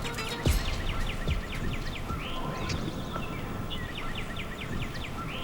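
A small songbird singing rapid runs of short, high, falling notes, about six a second, in two runs over a steady outdoor hiss. A soft low thump about half a second in.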